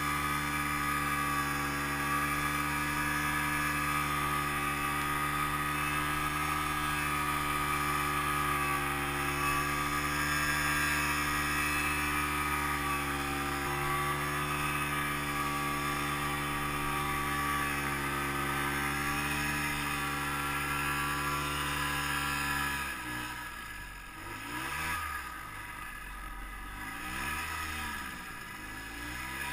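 Ski-Doo Tundra snowmobile engine running at steady high revs while pulling through deep powder. Near the end the revs drop and waver up and down as the throttle is eased off and blipped.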